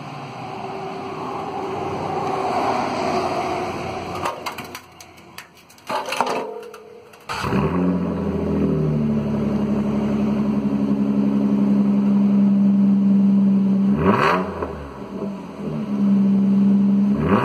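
Nissan Altima's 3.5 L V6 running through an exhaust with only the muffler removed (factory catalytic converters and stock tips kept). After a few seconds of indistinct noise and clattering, the exhaust sound comes in abruptly about seven seconds in and idles steadily and loudly. The engine is then revved twice near the end, each rev rising and falling quickly.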